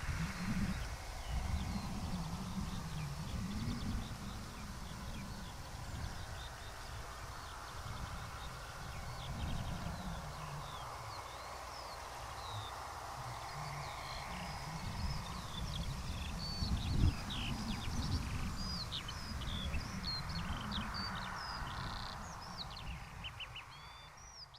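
Small songbirds chirping and twittering in many short high calls, growing busier in the second half, over a low rumble that rises and falls, with a brief thump about 17 seconds in. The sound fades out at the end.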